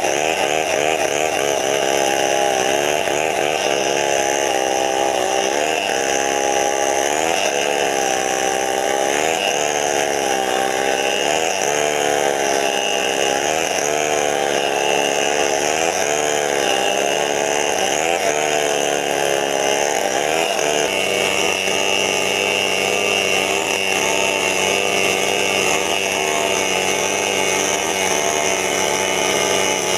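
Two-stroke chainsaw running while cutting wood, its engine note dipping and rising again and again, every second or two, as the chain bites and frees. About two-thirds of the way through it settles into a steadier note.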